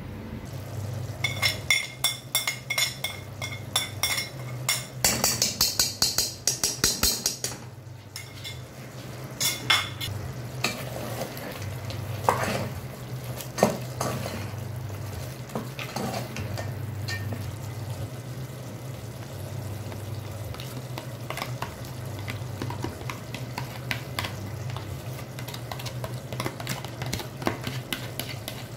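A spoon stirring mutton gravy in a metal pot, scraping against the pot over frying sizzle. Quick, loud strokes come about three a second for the first several seconds, then the stirring goes softer and more scattered, over a steady low hum.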